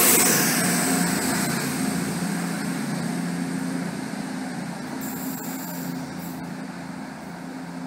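CrossCountry Voyager diesel multiple unit pulling away, its underfloor diesel engines humming steadily and fading as the train draws off.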